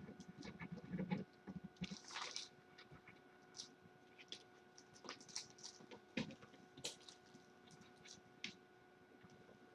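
Faint scattered taps, clicks and scratches of kittens scampering and climbing on a carpeted cat tree and play furniture, with a few soft thumps in the first second or so and a brief rustle about two seconds in. A faint steady hum runs underneath.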